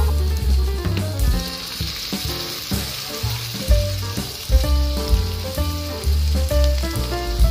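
Spice paste frying in a hot steel wok, stirred with a metal spatula. The sizzle grows louder about a second in as fermented fish sauce goes into the pan. Background music with a heavy bass beat plays under it.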